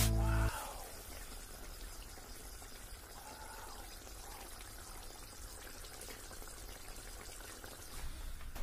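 Fish curry simmering in an iron wok: a faint, steady watery bubbling.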